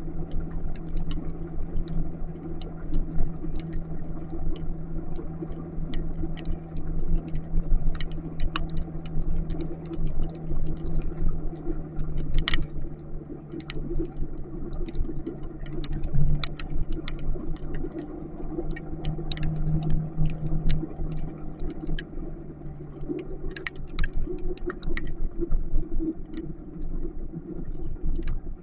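Motorcycle engine running at a steady cruising speed under a low, fluctuating rumble, with many sharp ticks of raindrops striking close by.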